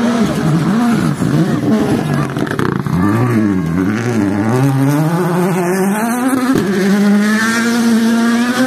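Rally car's turbocharged engine at full speed, its pitch rising and falling again and again as the driver works the throttle and gears. For about the last two seconds it holds one steady high note.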